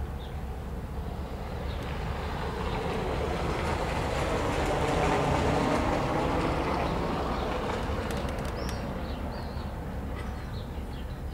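A vehicle passing close by, its rumble swelling to a peak about halfway through and fading again, over a low steady background rumble.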